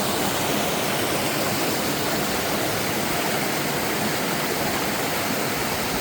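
Waterfall's water rushing steadily, close by.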